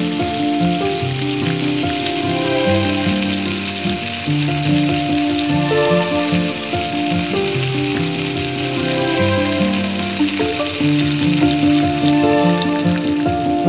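Salmon steak frying in hot oil in a pan, a steady crackling sizzle, heard over instrumental background music with a slow melody.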